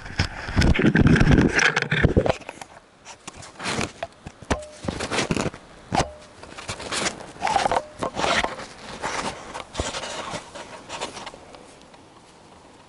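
Handling noise from an action camera being moved and remounted by a gloved hand: loud scraping and rubbing at first, then scattered rubs, clicks and knocks that die away near the end.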